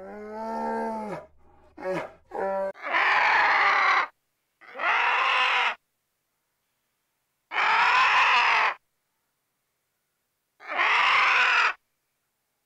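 An animal calling: a pitched call with a rising and falling tone at the start and two short calls around two seconds in, then a series of loud, harsh calls, each about a second long, repeating every two to three seconds with silence between.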